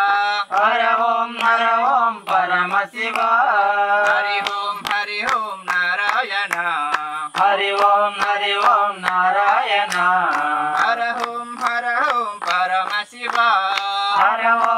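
A small group singing a Hindu devotional bhajan (a Shiva chant) together, with steady hand claps keeping the beat.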